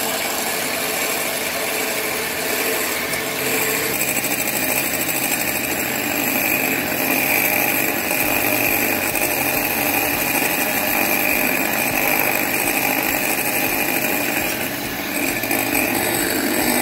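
Electric hand mixer running steadily, its twin wire beaters whisking egg whites in a glass bowl.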